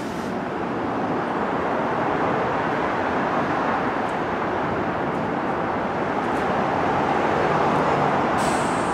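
New York City Subway 1 train (R62/R62A stock) pulling into the station, a steady running noise that grows slowly louder.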